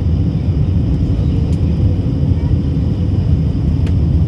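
Airliner cabin noise in flight: a steady low rumble of engines and airflow, with a faint steady hum above it.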